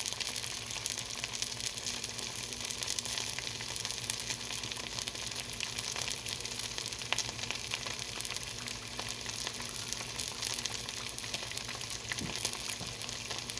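Cheese-based chaffle batter sizzling and crackling steadily inside a closed Dash mini waffle maker as it cooks.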